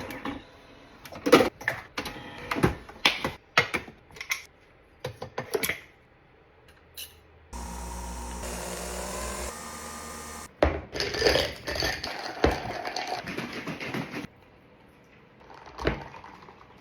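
Coffee being made: a run of clicks and knocks as cups and the machine are handled, then an electric coffee machine's motor runs steadily for about three seconds, followed by several seconds of hissing.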